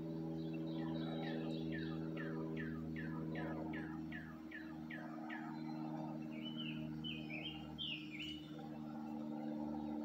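A songbird sings a run of about a dozen quick down-slurred whistles, roughly three a second, then a short burst of warbled notes a little later, over a steady low hum.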